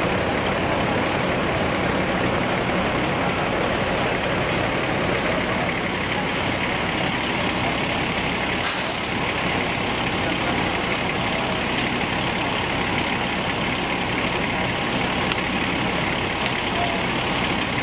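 Steady idling of the diesel engines on the fire trucks and ambulances, a constant low rumble, with a short hiss of air about nine seconds in.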